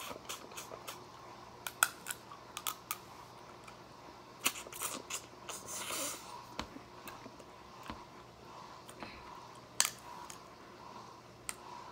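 Eating snow crab legs by hand: scattered sharp clicks and smacks of shell and mouth, with a short crunchy rustle about halfway.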